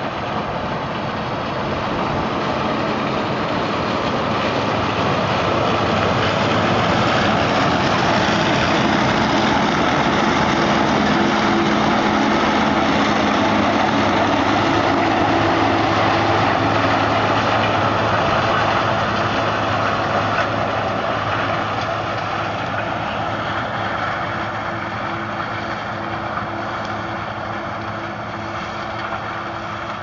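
Claas Lexion combine harvester running as it harvests maize: a steady engine and machinery drone that grows louder as it comes close, is loudest about halfway through, then fades as it moves away.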